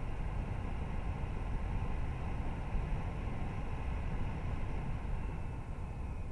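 Mac Studio (M1 Max) cooling fans running as a steady rush of air. A faint high-pitched whine comes in about five seconds in: the high-pitched cooling-system noise that Mac Studio owners complain of.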